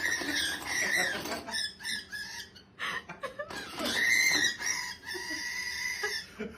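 Pet parrot calling in a few drawn-out, squawking cries with shorter calls between them.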